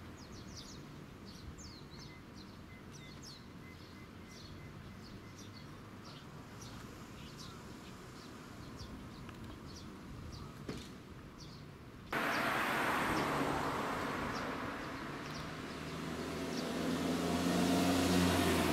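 Small birds chirping over a quiet outdoor background. About twelve seconds in, the sound jumps to louder traffic noise, with a vehicle engine passing and building up near the end.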